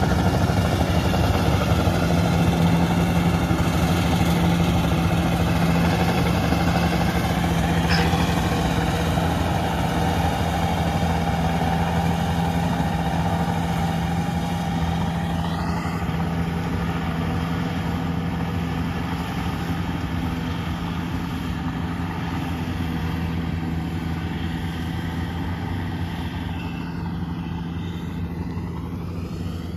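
Yanmar rice combine harvester running steadily while harvesting, a constant engine hum that grows gradually fainter as the machine moves away.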